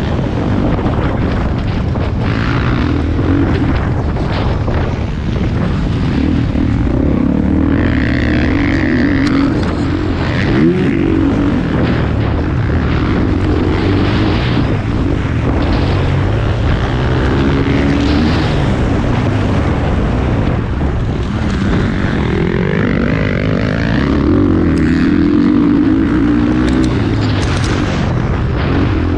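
Motocross bike engine running hard during a race, its pitch rising and falling again and again as the rider revs and shifts, over a constant low rumble.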